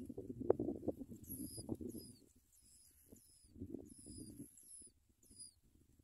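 Yellow-vented bulbul nestlings giving thin, high begging cheeps in quick, repeated groups, with a louder low rustling and patter underneath that fades off in the second half.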